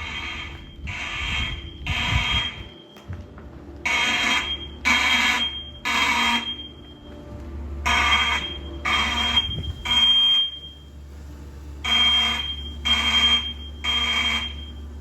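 Siemens mechanical fire alarm horns blaring in the temporal-three pattern: three short buzzy blasts about a second apart, then a pause, repeated four times. This is the standard evacuation signal.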